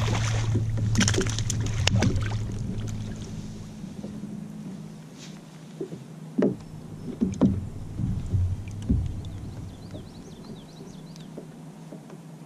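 A hooked largemouth bass thrashing and splashing at the surface, then several separate knocks and thumps as it is swung aboard the kayak and handled.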